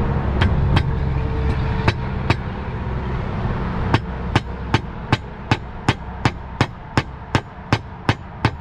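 Hand hammer driving nails to fasten clay Spanish roof tiles. A few spaced blows come first, then from about four seconds in a steady run of nearly three strikes a second.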